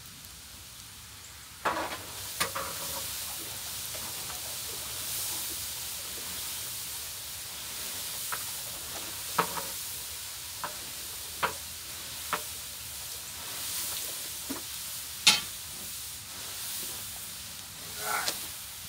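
Salted water boiling in a large cane syrup kettle, stirred with a long pole: a steady hiss of boil and steam that gets louder about two seconds in, with scattered sharp knocks, the loudest about fifteen seconds in.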